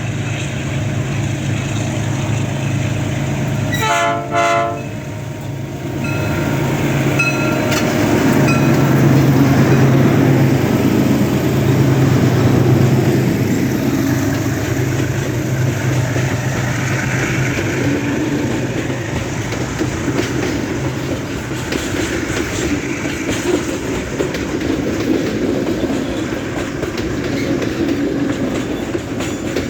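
GE U20C diesel-electric locomotives working hard up a steep grade with a heavy loaded train, their engines running with a steady low drone, with a short horn blast about four seconds in. The loaded grain wagons clack over the rail joints as they pass.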